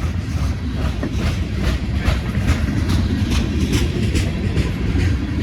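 Freight train cars rolling past: a steady rumble of steel wheels on the rails, with irregular clicks and clacks as the wheels run over the rail joints.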